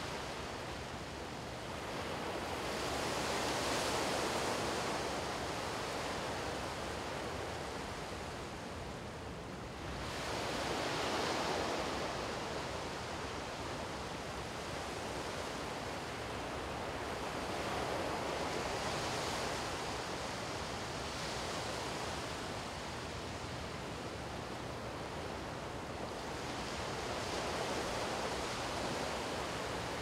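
Small sea waves breaking and washing up a sandy beach: a steady surf hiss that swells with each wave about every eight seconds.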